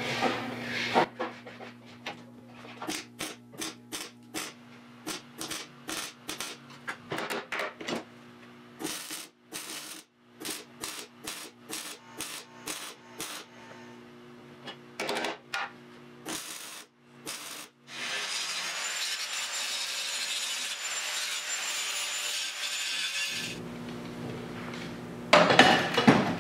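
MIG welder stitch-welding a steel patch onto a car frame: many short crackling bursts of a second or less, then one continuous crackling weld bead of about five seconds near the end.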